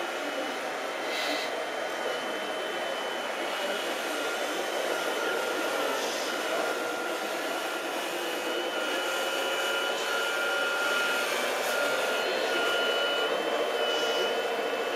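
Whine of the electric motors and hydraulic pump of a radio-controlled model wheel loader and dump truck working. It holds steady with small steps in pitch, and a lower whine rises in the second half as the loader drives.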